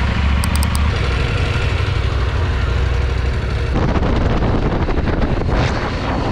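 KTM adventure motorcycle engine idling steadily, with four quick high beeps about half a second in. Almost four seconds in the sound changes abruptly to the bike riding along a road, its engine running under wind noise on the microphone.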